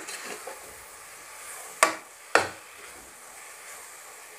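Metal slotted spoon stirring onion-tomato masala frying in a pressure cooker, with a faint sizzle, and two sharp knocks of the spoon against the pot about two seconds in, half a second apart.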